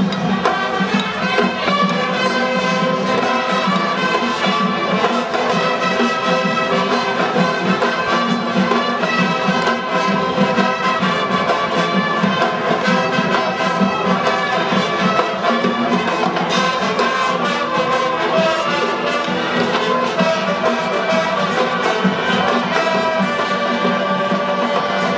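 Marching band playing live, brass instruments to the fore, in a continuous stream of sustained notes and melody.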